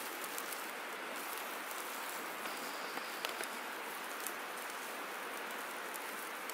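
Chicken thighs and peppers sizzling on a wire grill over a campfire: a steady hiss with a few small crackles and pops.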